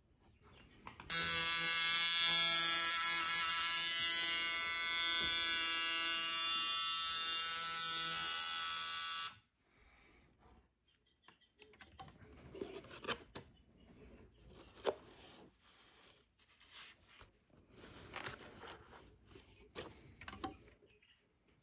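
Vintage Spaulding & Rogers Puma coil tattoo machine running on power, a loud, steady electric buzz. It starts about a second in, runs for about eight seconds and cuts off suddenly, followed by faint clicks of the metal frame being handled.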